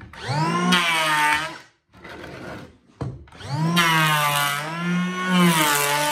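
New Makita DKP180 18 V cordless planer, with its original blades, running twice. Each run starts with a rising whine as the cutter drum spins up. The first run lasts about a second and a half. The second starts about three seconds in and is a planing pass along a strip of hardwood at about a 1 mm cut.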